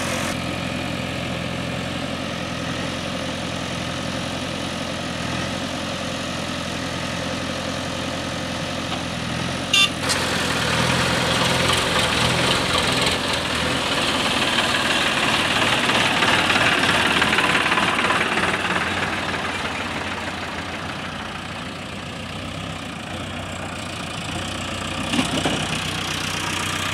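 Diesel engines of a Farmtrac tractor and a JCB 3DX backhoe loader running steadily, growing louder around the middle and easing off again. A sharp click comes about ten seconds in.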